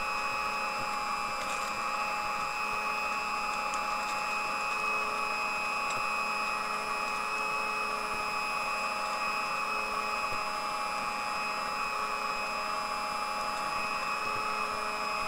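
Vintage Sunbeam Mixmaster stand mixer running steadily at high speed, its beaters whipping egg whites into meringue while sugar is slowly added.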